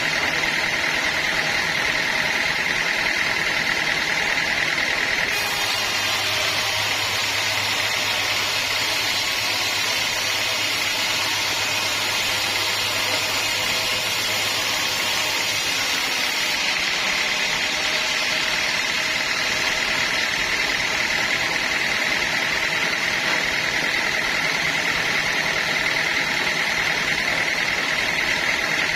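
Sawmill machinery running steadily. From about five to sixteen seconds in, a low hum and a brighter hiss are added.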